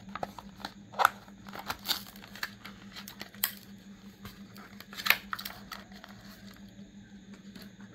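A die-cast toy car's plastic blister pack and cardboard backing card being torn open by hand: crinkling and tearing with scattered sharp cracks and snaps, thinning out after about six seconds. A faint steady hum runs underneath.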